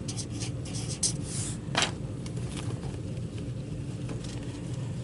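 Marker pen writing on a paper score sheet: a few short scratchy strokes in the first two seconds, with a sharp tap near the two-second mark, over a steady low room hum.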